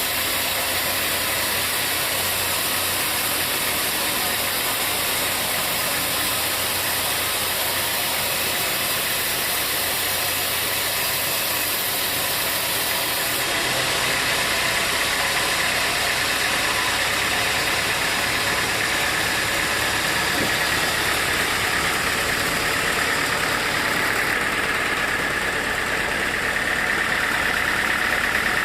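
Sawmill machinery running steadily with an engine-like drone; its tone changes about halfway through and again near the end.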